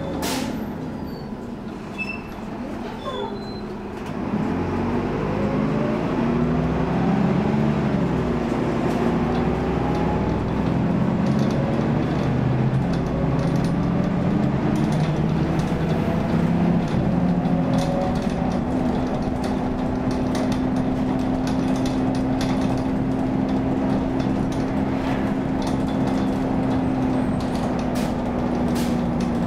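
Optare Tempo single-deck bus heard from inside the saloon. The engine pulls away about four seconds in, its pitch rising and dropping back through several gear changes. About halfway through it settles to a steady drone at cruising speed, over road and tyre noise, with a sharp click at the very start.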